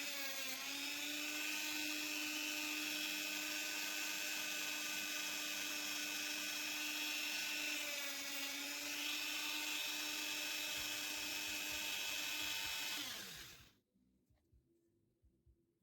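Small high-speed power tool motor running with a steady high-pitched whine, its pitch dipping briefly twice. About 13 seconds in it is switched off and spins down, falling in pitch.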